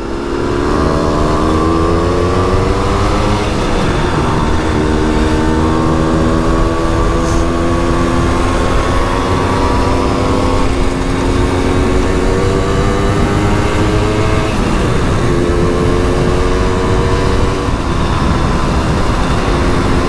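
Simson two-stroke moped engine under way, its pitch climbing as it pulls through each gear and dropping sharply at each upshift, a few times over.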